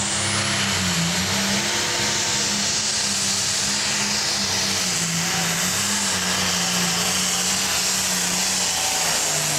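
Modified International 966 pro stock pulling tractor, its turbocharged diesel built up from a 466 block to well over 600 cubic inches, running flat out under load as it pulls the sled. The engine note wavers slightly, with a high steady whine above it.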